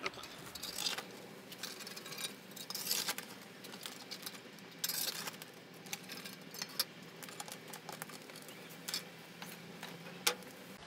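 Irregular scraping and clinking as hot embers and ash are raked across the tiled floor beneath a parrilla grill, with scattered crackles and clicks from the wood fire beside it.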